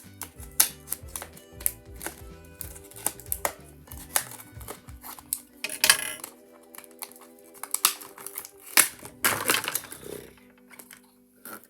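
Background music with a steady repeating bass line, over frequent sharp clicks and a couple of brief rustles from plastic Tangle fidget toy pieces and their packaging being handled.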